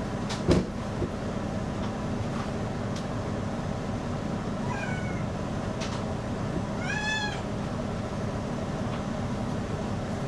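A cat meowing twice over the steady blowing of a hair dryer, the first meow faint and the second louder and longer. A sharp knock sounds about half a second in.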